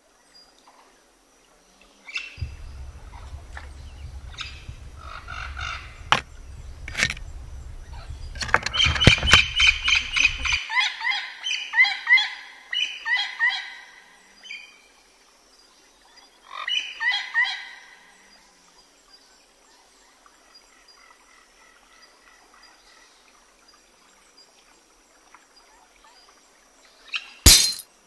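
Birds calling in bursts of quick, repeated chirping notes, loudest in the middle, over a low rumble in the first third. A single sharp knock near the end.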